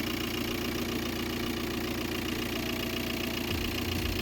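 Audi car engine idling steadily, running again on a freshly charged battery.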